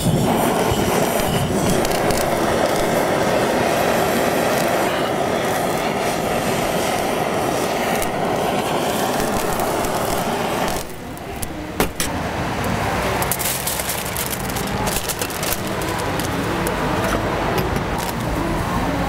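Handheld butane blowtorch running with a steady hiss as it flame-sears sauced meat skewers on foil, cutting off about eleven seconds in. A sharp click and then clicks and rustling of foil and skewers being handled follow.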